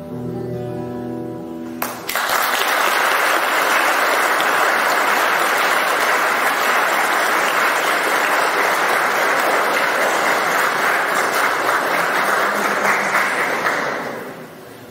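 Acoustic guitar ringing out its last notes, then a sudden burst of audience applause about two seconds in that lasts some twelve seconds and fades out near the end.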